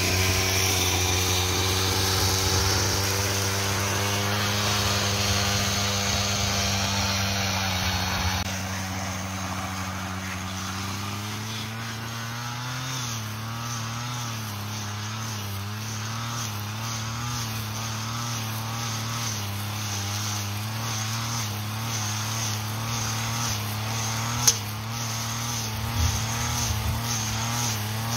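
Brush cutter engine running steadily at working speed while cutting grass and weeds, its pitch wavering slightly. It is close at first and heard farther off after about eight seconds, with a single sharp click about three-quarters of the way through.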